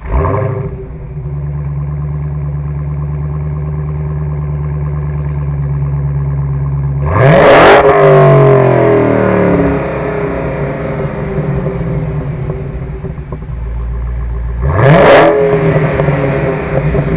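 2015 Dodge Challenger SRT Hellcat's supercharged 6.2-litre V8 catching on start-up with a loud flare, settling into a steady, low idle, then blipped twice: a quick rev up and back down about seven seconds in and again near the end.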